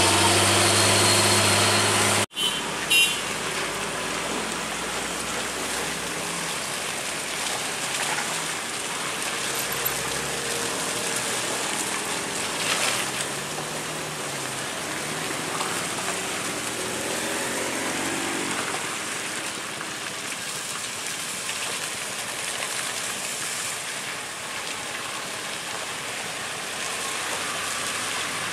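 A heavy truck's diesel engine pulling under load, cut off abruptly about two seconds in. After that a steady hiss, with faint car engines rising and falling in pitch.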